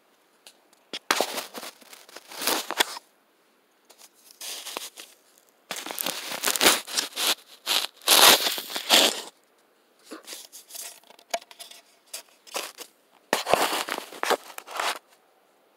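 Rustling, crinkling handling noise of a hoodie sleeve rubbing against a phone's microphone as the phone is moved about, in several uneven bursts of a second or more, loudest about eight seconds in.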